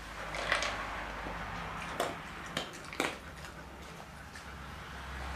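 Husky eating dry kibble from a plastic slow-feeder bowl: soft crunching and rustling, with several short, sharp clicks of kibble against the plastic scattered through.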